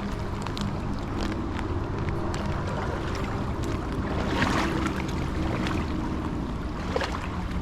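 Creek water splashing and sloshing around a person wading through it, with a few louder splashes about four and a half and seven seconds in, over a steady low rumble.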